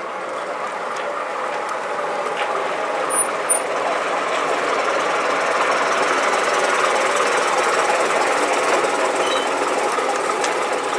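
Bristol VR double-decker bus's diesel engine running with a steady clatter as the bus pulls past and away, growing louder over the first few seconds and then holding steady.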